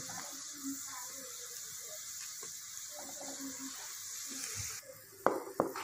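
Water boiling in a pan around blocks of instant noodles, a steady bubbling hiss, while a wooden spatula presses the noodles down. The hiss cuts off near the end and a couple of sharp knocks follow.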